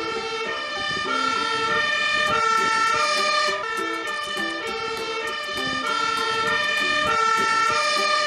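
Fire engine siren sounding steadily, its tones switching back and forth between pitches about every half second, as the aerial ladder truck pulls away with blue lights on.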